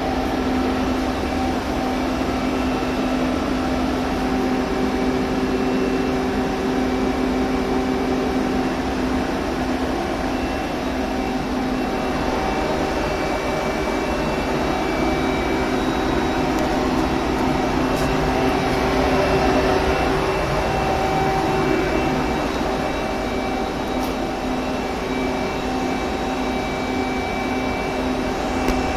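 2004 Okuma ESL10 CNC lathe running: a steady mechanical hum and whir with several steady tones, swelling slightly about two-thirds of the way through.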